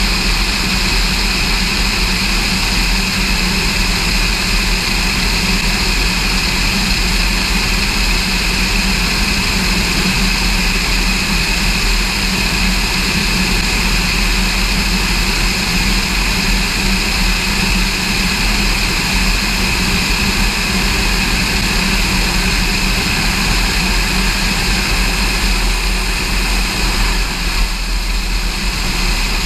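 Cessna 210 Centurion's six-cylinder piston engine and propeller running steadily, a continuous drone with a few steady high tones over rushing airflow noise.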